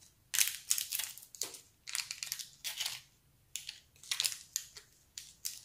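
Small plastic-wrapped packets being snipped open with kitchen scissors and unwrapped: a string of short, irregular crinkles and rustles of thin plastic.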